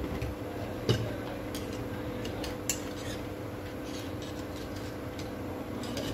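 Pliers and small steel parts of a Makita HP1640K impact drill clinking and clicking together as they are handled, a few sharp clicks, the loudest about a second in, over a steady background hum.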